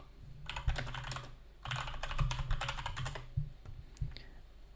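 Typing on a computer keyboard: two quick runs of keystrokes, then a few single key taps.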